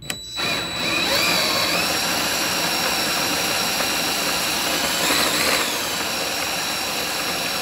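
Monster Mill MM3 three-roller grain mill running under power and crushing malted barley. A loud, steady motor whine over a grinding rush starts abruptly, rises in pitch over about the first second, and then holds steady.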